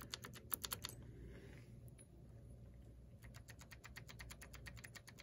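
Rapid, even light clicking, about nine clicks a second, as the RC car's wheel hub and drivetrain are turned by hand. It comes in two runs, the second starting about three seconds in.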